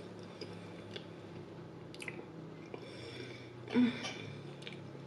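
Close-miked mouth sounds of someone chewing a soft, creamy mouthful of loaded potato casserole, with small wet clicks and smacks. A brief louder hum or smack comes just before four seconds in.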